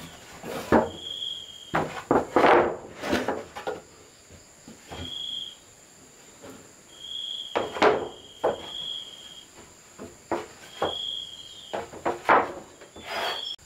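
Irregular knocks of a hand tool striking wood, some single and some in quick clusters. Under them run an insect's steady, very high drone and several short high notes.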